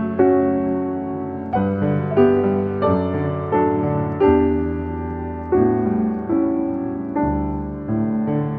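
Piano playing slow chords, each one struck and then fading before the next.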